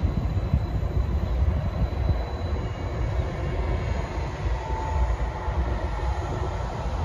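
Passenger multiple-unit train running past, a steady low rumble of wheels on rail, with a short faint whine about five seconds in.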